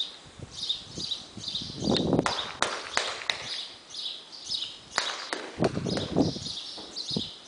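A Quarter Horse gelding walking on soft arena dirt: muffled hoofbeats with a few sharp clicks, bunched about two seconds in and again about five seconds in. Small birds chirp in quick repeated bursts throughout.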